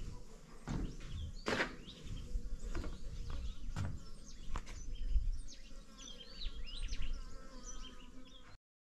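Wind rumbling and buffeting on the microphone, with scattered knocks and clicks. In the second half come many short bird chirps. The sound cuts off suddenly about half a second before the end.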